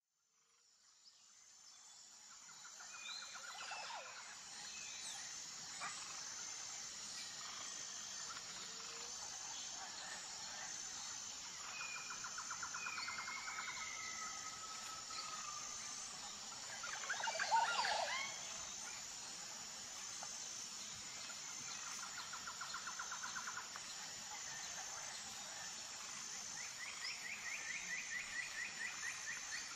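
Forest ambience fading in over the first few seconds. A steady high insect drone carries an evenly pulsing note, bird trills come back every several seconds, and one louder call rises and falls about seventeen seconds in.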